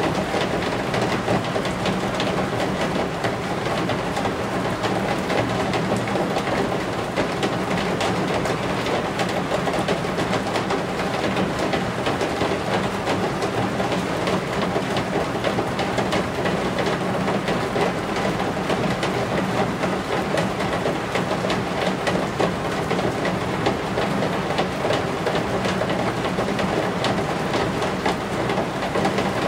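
Steady rain beating on roof eaves: a dense, unbroken patter of drops.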